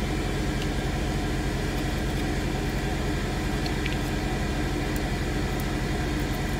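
Steady, even motor hum with fixed low tones, running unchanged throughout. A few faint small clicks sound over it.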